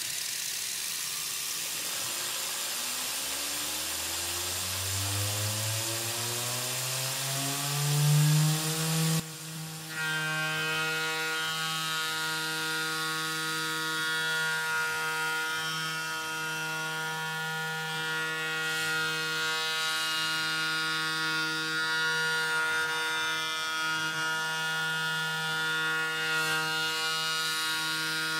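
Tormach 440 CNC mill spindle spinning up with a rising whine to about 10,000 rpm over several seconds, then running steadily at that pitch as the 19 mm end mill cuts the aluminium part. A steady hiss runs under the spin-up and cuts off suddenly about nine seconds in.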